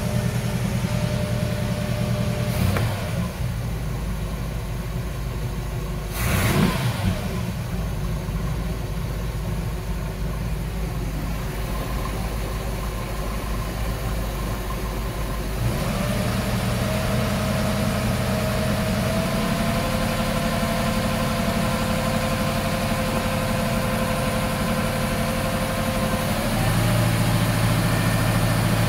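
A 305 V8 marine inboard engine running steadily on a test run. A brief sweeping rush comes about six seconds in, and the engine sound grows louder and fuller about sixteen seconds in and again near the end.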